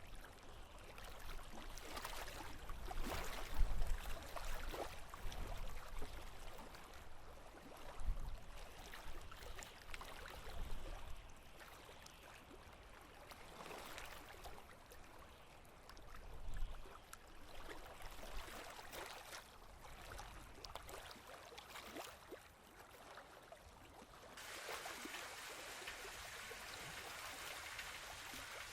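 Small waves lapping and splashing in irregular bursts, with a few low thuds. About 24 seconds in the sound changes suddenly to a steadier rushing hiss of water.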